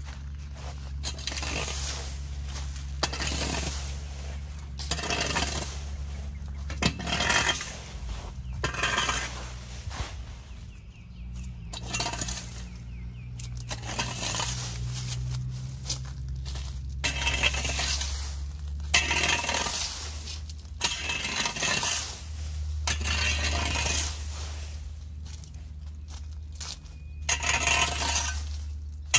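A rake dragging dry leaves and seed pods across a concrete sidewalk in repeated strokes, about one every two seconds, the hard pods clinking and rattling on the pavement.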